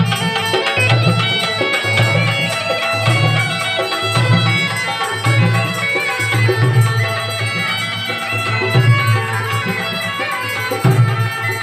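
Been (pungi), the gourd reed pipe of Indian snake charmers, playing a folk melody over its steady drone, with a low pulsing beat underneath about once a second.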